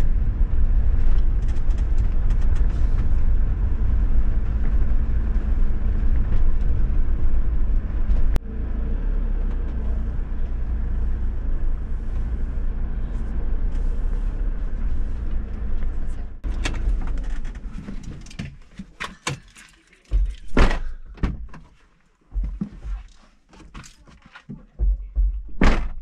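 Steady rumble of a motorhome driving slowly over a rough dirt track, heard inside the cab; it cuts off about two-thirds of the way through. Then a scattering of separate thunks and knocks, two of them louder.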